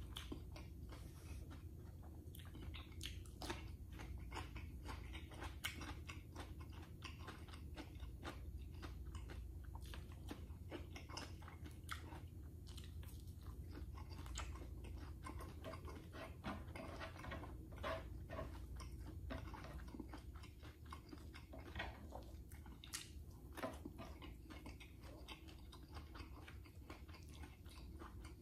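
Close-miked chewing and biting as a man eats rice, corned beef and fried dried fish (tuyo) with his fingers. Many small wet clicks and smacks come at an irregular pace over a low steady hum.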